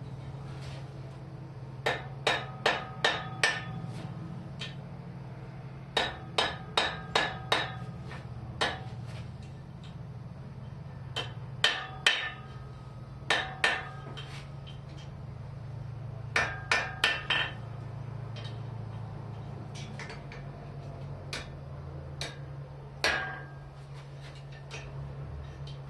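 Hand hammer striking hot mild steel rod on an anvil while drawing out a point: quick runs of four to six blows with pauses between, each blow ringing briefly. A steady low hum runs underneath.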